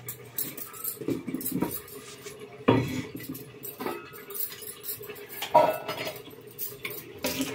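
Metal kitchen utensils and containers clattering and clinking on a counter as they are handled and moved. There is a sharp knock a little under three seconds in and a short metallic ring a little after five seconds.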